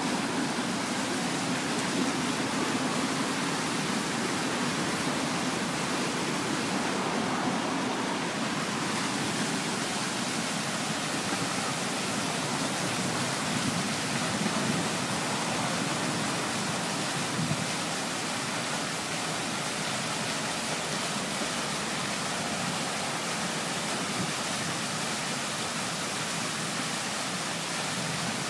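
Fountain running: a steady, even rush of falling water.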